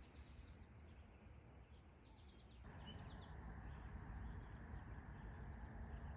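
Faint songbird chirps and a high buzzy trill against a quiet, still morning background. The chirps come in short quick runs, and the trill starts about two and a half seconds in and lasts about two seconds.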